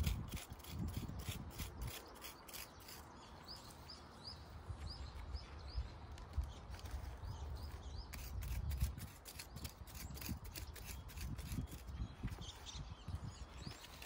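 Grass and weeds being cut by hand at ground level: a run of crisp snips and rustles, with a few low thumps. A bird chirps repeatedly in the background, a series of short rising chirps starting about three seconds in and again near the end.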